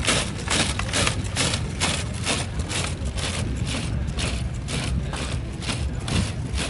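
Bicycles rolling over dry, dusty ground: a rhythmic scraping about three times a second over a steady low rumble.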